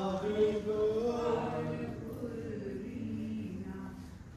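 A man chanting a Sikh prayer in a slow melodic line, holding long notes, louder at first and fading toward the end.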